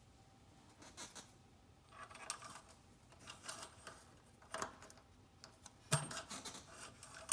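Engine oil dipstick being pushed down its tube and drawn back out to check the oil level, with faint scrapes and rag handling. There are small metallic clicks about once a second, and the sharpest click comes about six seconds in.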